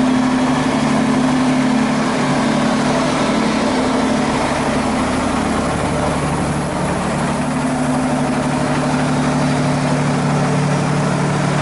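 Engine of an old truck-mounted mobile crane running steadily, powering the crane.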